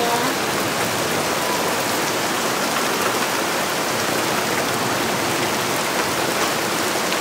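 Heavy hail storm: hailstones and rain pelting down in a dense, steady hiss, with a few sharper ticks of single stones.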